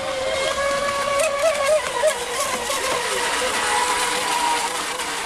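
RC racing monohull boat's motor whining at high speed, its pitch wavering as the boat runs past, growing louder over the first second as it comes near.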